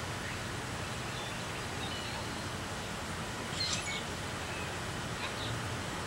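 Steady outdoor background noise with a low hum, and a few faint bird chirps about three and a half seconds in and again near the end.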